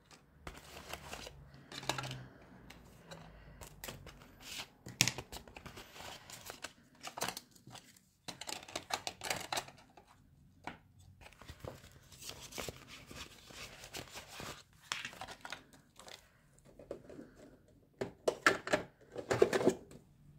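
Playing cards and small game pieces handled and slid into a plastic storage box: irregular rustling, scraping and light clicks, with a louder flurry of handling near the end.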